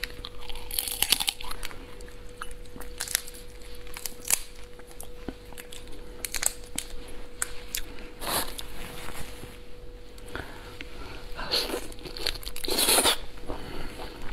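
Cooked lobster shells being cracked and peeled by hand, with repeated sharp snaps, crunching and tearing of shell and meat, mixed with close-up biting and chewing. Louder crunching spells come about eight seconds in and again near the end.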